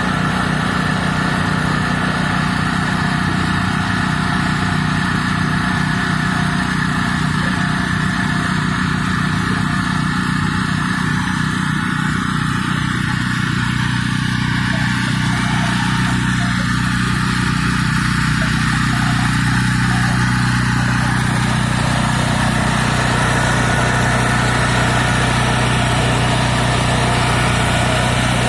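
Engine of heavy digging equipment running steadily, its note shifting slightly about halfway through.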